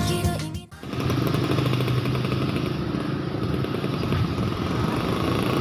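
Music fades out in the first moment, then a steady, dense mechanical running noise with a low hum takes over.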